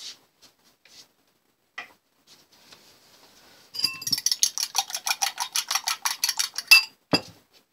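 Metal fork beating a raw egg in a bowl: a few scattered light taps, then from about four seconds in a fast, even clinking of the fork against the bowl, about ten strokes a second for some three seconds. A single knock follows near the end.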